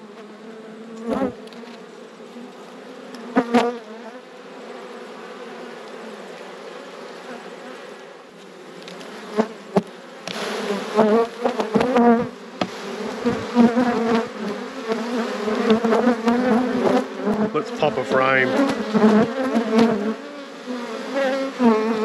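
Honeybees buzzing in large numbers around an opened hive, a steady hum that grows louder and wavers in pitch from about halfway through as bees fly close. A few sharp knocks come in the first half.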